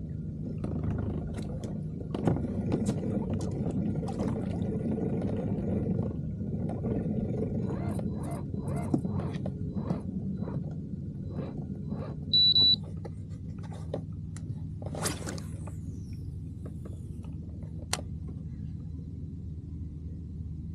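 Steady low hum of the kayak's electric trolling motor, with scattered clicks from the rod and reel while a bass is fought. About twelve seconds in, a short high electronic beep is the loudest sound.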